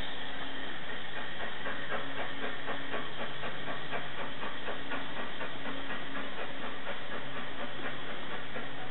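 Steam locomotive working hard, its exhaust chuffing in a quick, even rhythm of beats over a steady hiss of steam.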